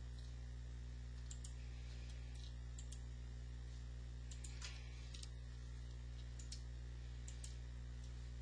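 Computer mouse clicking several times, some clicks in quick pairs, over a steady low electrical hum.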